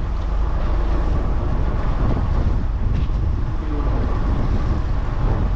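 Strong wind buffeting the microphone on a fishing boat at sea: a steady, loud low rumble and rush of wind over the boat and water.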